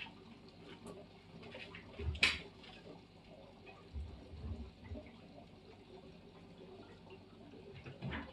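Aquarium filter running: water trickling and splashing over a steady low hum. There is a brief louder splash about two seconds in, a few low thumps around four to five seconds, and another short splash near the end.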